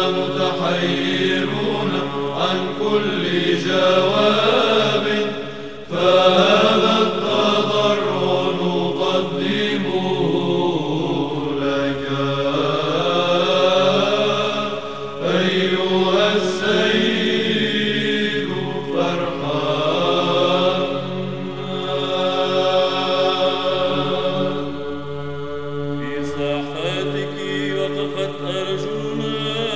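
Background music: a slow vocal chant, with voices holding long, gliding notes over a steady low drone.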